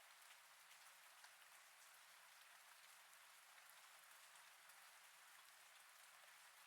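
Faint, steady rain sound effect: an even hiss of rainfall with scattered ticks of individual drops.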